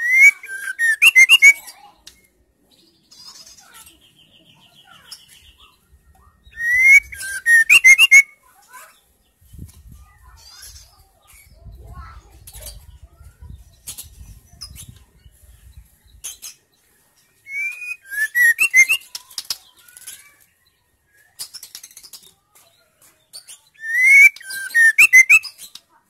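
White-rumped shama calling in four short bursts with long pauses between. Each burst is a few sliding whistled notes followed by a harsh, rattling chatter.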